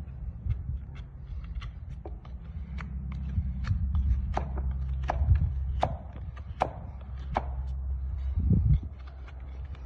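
A farrier's hoof knife and rasp working a horse's hoof: sharp, irregular clicks and scrapes, several a second at times, over a steady low hum. A heavier thump comes near the end.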